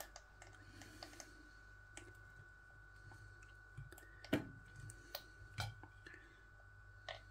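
Plastic squeeze bottle of barbecue sauce being squeezed, with faint scattered clicks and squirts of sauce; the sharpest click comes a little over four seconds in.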